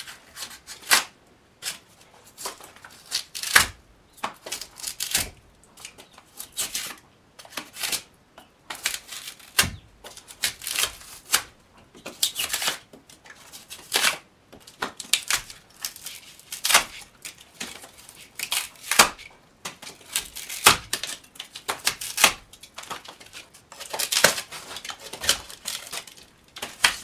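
Hardened expanding foam being scraped and torn out of the seams between the logs of a log wall with a hand tool: irregular sharp scrapes, one or two a second, with short pauses between them.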